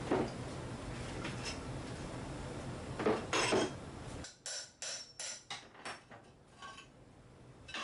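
Hammer striking a pry bar and chisel to chip up ceramic floor tiles, with hard clinking knocks. Single heavy blows come near the start and about three seconds in, then a quick run of five strikes about three a second, trailing off into lighter taps. A steady background noise stops abruptly about four seconds in.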